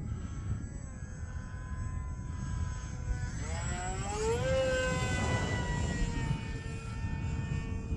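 HobbyZone Aeroscout RC plane's electric motor and propeller whining, rising in pitch and growing louder about three and a half seconds in, then holding and easing slightly lower. Low wind rumble on the microphone underneath.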